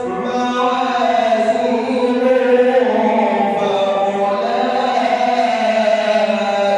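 A male reciter's voice chanting the Quran in melodic tajweed style, holding long drawn-out notes that slowly rise and fall in pitch.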